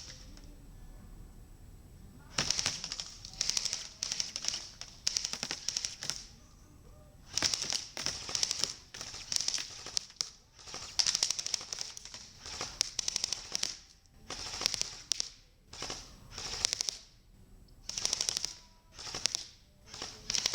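Airsoft guns firing in rapid strings of shots, a burst every second or two with short pauses between.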